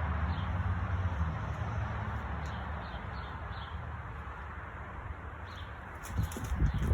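Outdoor background: a steady hiss with a low rumble that fades in the first seconds, and a few faint bird chirps. Some low thumps or handling knocks come near the end.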